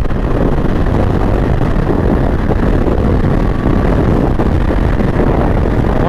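Royal Enfield Interceptor 650's parallel-twin engine running steadily at cruising speed, mixed with heavy wind noise on the microphone.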